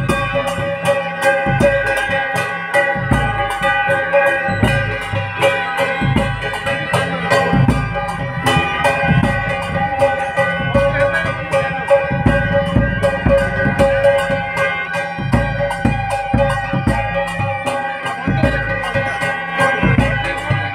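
Loud music: drums beating a fast, even rhythm of about three to four strokes a second under long held melody notes.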